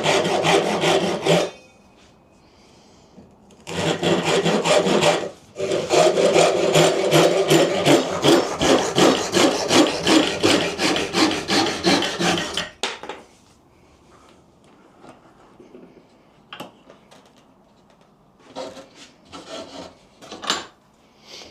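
A hand tool worked on wood in quick, rhythmic back-and-forth strokes, cutting or rasping. It comes in three runs with short pauses, the longest about seven seconds, and is followed after about 13 seconds by quieter scattered knocks and brief scraping.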